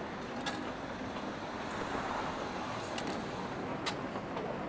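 Rainy cafe ambience: a steady hiss of rain with a few sharp clicks, like crockery, about three times.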